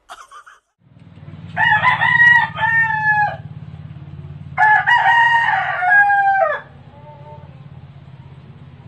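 A rooster crowing twice, each crow a few held, strained notes that fall away at the end, over a steady low hum.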